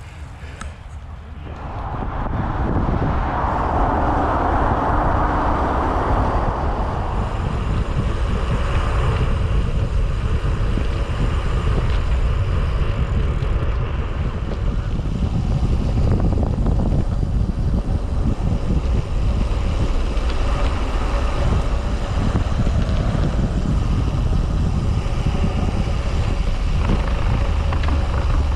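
Wind rumbling on the microphone of a camera riding on a moving bicycle, mixed with tyre and road noise. It rises sharply about two seconds in and then stays loud and steady.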